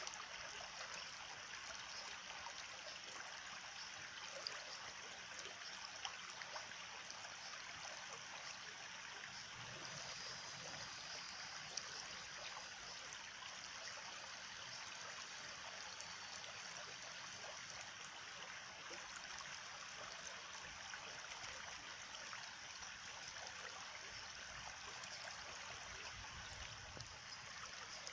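Water of a stream flowing steadily, a soft even rush without pause.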